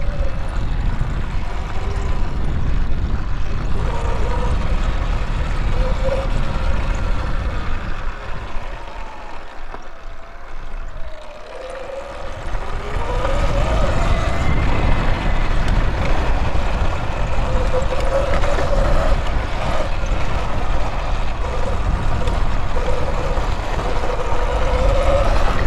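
Riding an electric motorbike with wind buffeting the microphone, the motor's whine rising and falling with speed. It eases off for a few seconds around the middle, then picks up again.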